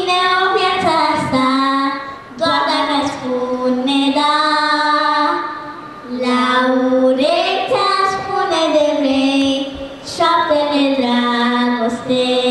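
A young girl singing a cappella into a hand-held microphone, with no accompaniment: held, gliding notes in phrases of about three seconds, separated by short breaths.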